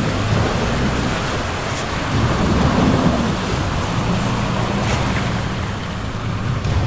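SUV engine pulling under load with a steady low drone that swells briefly about three seconds in, over the rushing splash of its wheels churning through water and mud.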